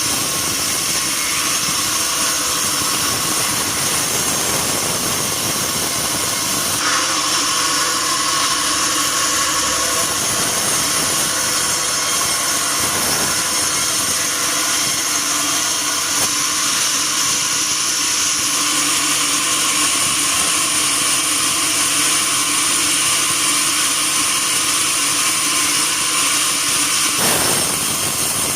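Sawmill band saw running steadily, likely cutting through a log. The sound changes about seven seconds in and again near the end.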